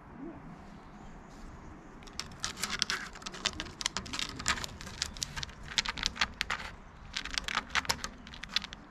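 Cat scratching its claws on a wooden pillar: rapid rasping scrapes in bursts, starting about two seconds in.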